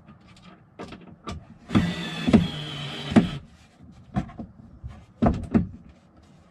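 A small electric motor whirs steadily for about a second and a half, with a few knocks over it, between scattered clicks and knocks of handling.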